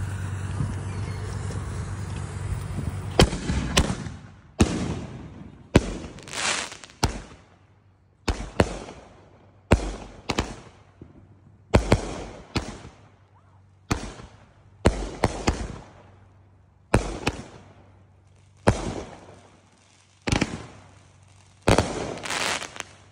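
Consumer fireworks: a spark fountain hisses steadily for about three seconds, then aerial shells go off roughly once a second, some in quick pairs. Each is a sharp bang followed by a short fading crackle.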